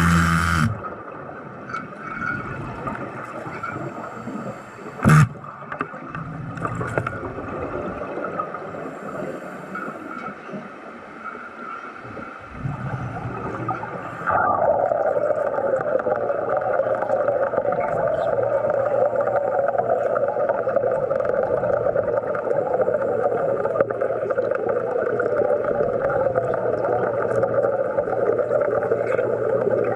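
Underwater sound with a steady hum and one sharp click. About halfway through, a louder continuous crackling hiss starts suddenly and holds steady, the sound of an underwater welding arc burning on a rod.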